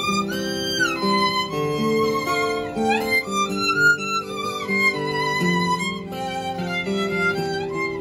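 Violin playing a lively melody with sliding notes, over acoustic guitar accompaniment.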